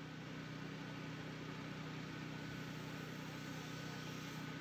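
Faint, steady mechanical hum with a few held tones, unchanging throughout.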